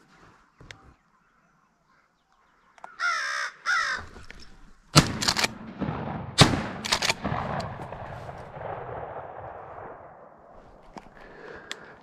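Two harsh crow caws, then a burst of fire from a Remington 870 pump-action shotgun: a shot about five seconds in, another a second and a half later and a further crack right after it. The reports echo and die away over several seconds.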